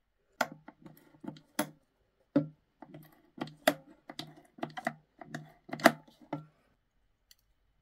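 Plastic pump-top dispenser bottle being pumped again and again: a string of sharp plastic clicks with soft squirts, about a dozen strokes, irregular at roughly two a second.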